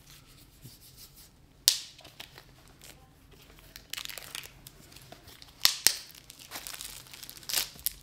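Plastic wrapping crinkling and tearing as it is pulled off a new putter head, with several sharp crackles among quieter rustling.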